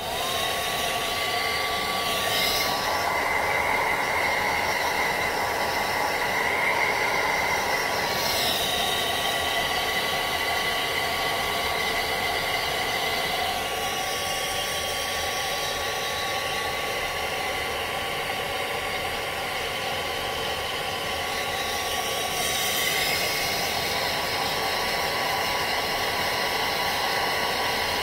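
Handheld hair dryer switched on and running steadily, blowing on the hairline to dry freshly applied lace glue. Its motor whine rises briefly at switch-on and settles to a steady pitch over a constant rush of air, which shifts a little every few seconds as the dryer is moved about.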